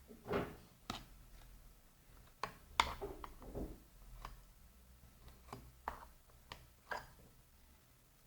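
Scattered light clicks and knocks of hand work on the plastic housing of an Audi central-locking vacuum pump being taken apart, about ten of them at irregular intervals.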